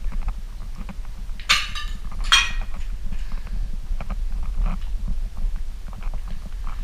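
Footsteps crunching and clicking over broken tiles and rubble, with a steady low rumble of camera handling. Two short, louder harsh rasping sounds come about a second and a half and two and a half seconds in.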